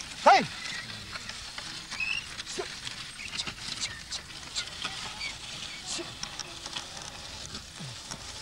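A loud call that falls sharply in pitch about a third of a second in, over scattered crackling and ticking. Fainter falling calls come around the middle and near the end, and a short high chirp about two seconds in.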